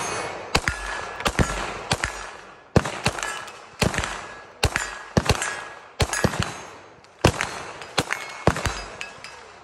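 Stealth Arms Platypus 9mm 2011 pistol firing a long string of rapid shots, roughly two a second, each sharp crack trailing off in an echo.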